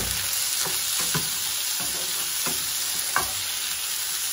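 Onion, tomato, bell pepper and ginger sizzling in a nonstick frying pan while a spatula stirs them, with a short scrape of the spatula against the pan roughly every two-thirds of a second, the loudest about three seconds in.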